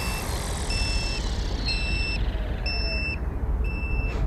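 Low-voltage battery alarm on an electric RC helicopter beeping about once a second, each beep about half a second long; it signals that the 4S LiPo flight battery is drained. A faint falling whine of the rotor winding down runs under the first part over a low rumble, and a click sounds near the end.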